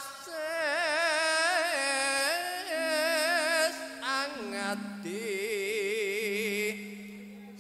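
A man singing a Javanese langgam melody in gamelan (karawitan) style, with heavy wavering vibrato and long held notes in two phrases, over a steady low held tone.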